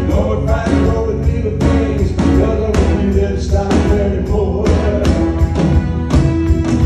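Live band music: a man sings the lead over electric bass and a steady drum beat. The voice stops about two-thirds through while the band plays on.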